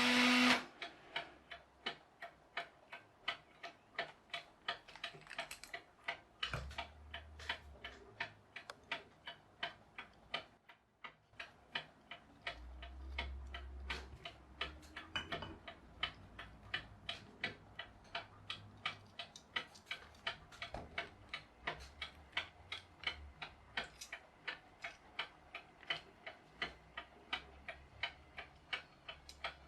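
Mechanical clock ticking steadily, about two ticks a second; an old clock whose many worn parts have been replaced with 3D-printed ones.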